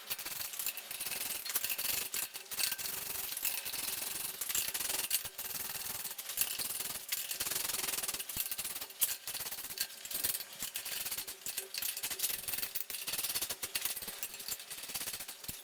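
Steady scratchy rubbing and rattling with many small clicks, typical of hands handling and working metal parts on a workbench.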